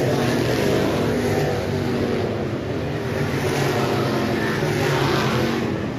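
Several dirt track race cars' engines running hard at once as the pack laps the oval, their pitches rising and falling with the throttle.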